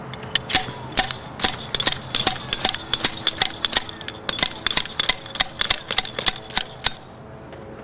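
Metal hammer sleeve of an Ideal Umbrella Stand HD being driven down on its spike again and again, a fast run of ringing metal clanks, several a second, as the spike goes into firm lawn turf. The clanks stop about seven seconds in.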